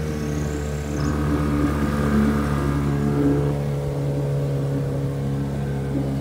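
Small boat outboard motor running at a steady speed, pushing the boat along.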